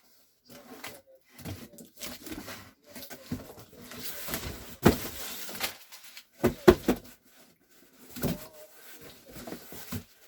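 Packing paper rustling and crinkling as items are pulled out of a cardboard box, with a few sharp knocks about halfway through.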